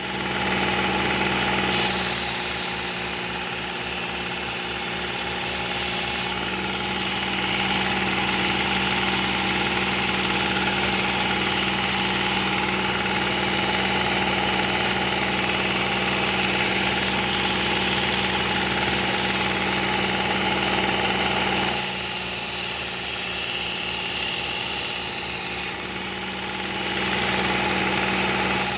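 Work Sharp Ken Onion Edition belt sharpener running steadily on a 120-grit Cubitron belt while a knife edge is ground. The grinding hiss grows brighter for a few seconds about two seconds in, and again for a few seconds past the middle, then the sound dips briefly near the end.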